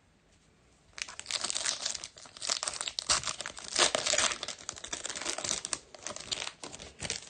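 A foil Topps Chrome trading-card pack being torn open and crinkled in the hands. The crackling starts about a second in and goes on in quick irregular rustles.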